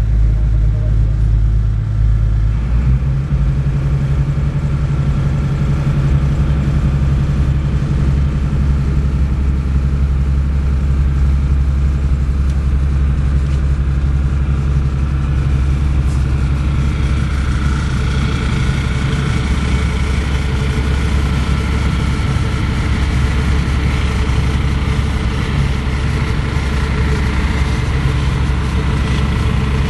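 Passenger ferry boat's engine running steadily, heard from inside the passenger cabin; its note shifts about two and a half seconds in. A broad hiss runs under it and grows stronger about halfway through.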